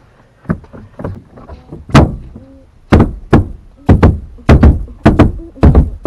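Hand slaps on a plastic interior trim panel, seating its push clips: about a dozen sharp thumps, a few spaced ones, then quicker and harder from about halfway through.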